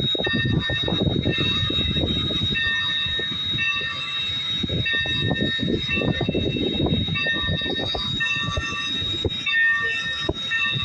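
Train rolling along the rails: a steady rumble of wheels with many short clanks and knocks. Over it are a steady high whine and a high ringing tone that repeats about once a second.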